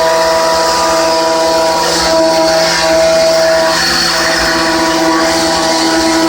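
A Hermle C20U machining centre trochoidal milling with a 16 mm solid end mill at 4800 rpm, cutting at 30 mm depth and 1 mm width: a loud, steady whine of the cut over a hiss. The whine's pitch breaks off briefly and comes back every second or so.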